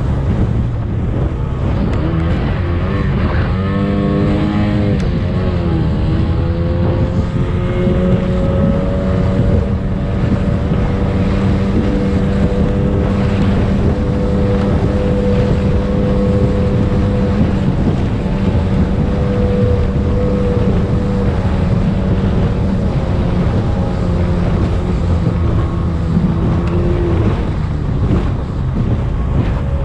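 Racing speedboat's engine running hard, heard from on board, with wind buffeting the microphone. The engine note climbs about four seconds in, holds steady at speed, then eases slightly near the end.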